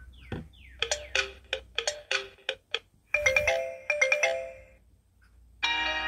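Alcatel Pixi Eclipse smartphone playing short previews of its built-in ringtones one after another through its small speaker, each cut off as the next is picked: a few falling chirps, a run of short plucked notes, a brief chiming pattern, then after a short pause a fuller ringtone begins near the end.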